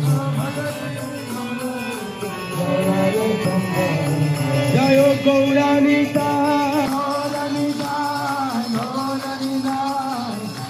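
Devotional kirtan: chanted singing with musical accompaniment, the melody held in long, wavering lines.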